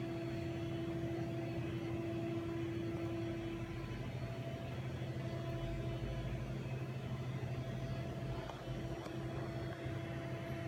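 Steady electrical hum with a few faint steady tones from a powered-up but idle Haas VF-9 CNC vertical machining center. One of the higher tones fades out about three and a half seconds in and comes back faintly later.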